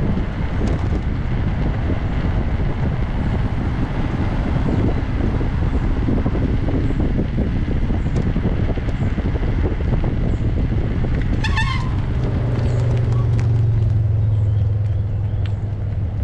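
Steady rushing of wind on the microphone mixed with tyre and road rumble from a moving bicycle trailer. A brief high-pitched squeak comes about two-thirds of the way in, and a low steady hum builds over the last few seconds.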